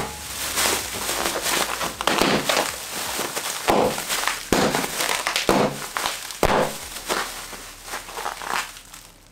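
Clear plastic air-cushion packing film being handled and squeezed, crinkling and crackling, with several sharp cracks; it dies down near the end.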